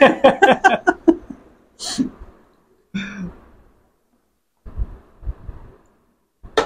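A man laughs briefly, then drinks from a glass with a few breathy exhalations and several low gulps. A glass clicks down on a table near the end.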